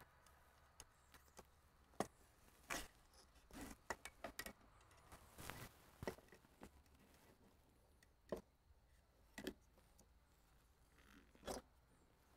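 Faint, irregular light clicks and taps, about ten in all, as a new fuel level sender with its float arm is handled and lowered onto the mounting studs of a tractor's fuel tank.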